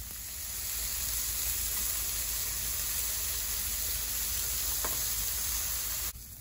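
Vegetables sizzling on a hot electric indoor grill plate, a steady hiss as they are turned with tongs; the sizzle cuts off suddenly near the end.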